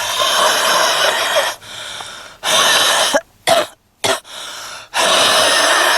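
A woman's heavy smoker's cough: a run of harsh coughs of uneven length with brief breaks between them.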